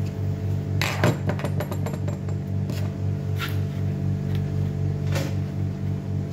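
Clicks and clatter of hand tools and small parts being handled during an autoclave repair: a quick run of clicks about a second in, then a couple of single clicks. Under them runs a steady low hum that pulses rapidly.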